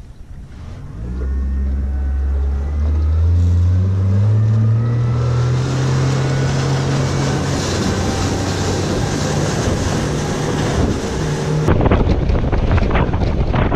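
Outboard motor on a fishing skiff speeding up from low revs, its pitch rising over the first few seconds, then running steady at speed. Wind buffets the microphone near the end.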